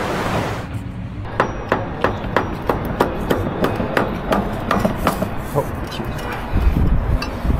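A hammer striking concrete over and over, about three blows a second, then a deep low rumble near the end.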